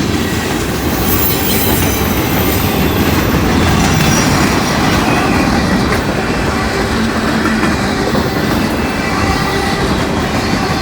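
Norfolk Southern freight train passing close by at speed on a banked curve: a steady, loud rumble of wheels on the rails.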